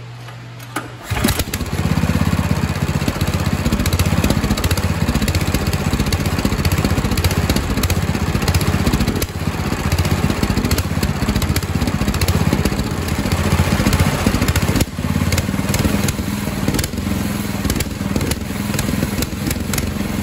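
A freshly rebuilt Predator 420 single-cylinder four-stroke engine, with a new piston and gaskets, starts about a second in and then runs steadily.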